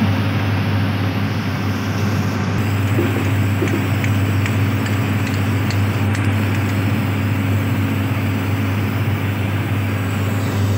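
Machinery running nearby with a steady low hum and a constant rushing noise.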